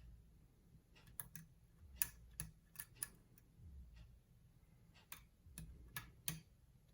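Faint, irregular metallic clicks of a lock pick working the pins inside a padlock's cylinder, with the core held in a false set under tension.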